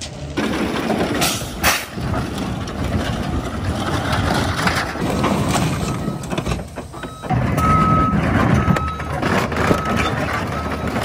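Caterpillar excavator tracking in reverse over an old Toyota pickup, its engine running under sharp cracks and crunching as the truck's body is crushed beneath the tracks. Its reversing alarm beeps steadily from about six seconds in.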